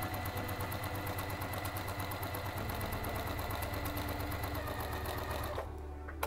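Electric sewing machine running a straight stitch through layered cotton selvage strips: a steady motor hum with rapid, even needle strokes, stopping about five and a half seconds in.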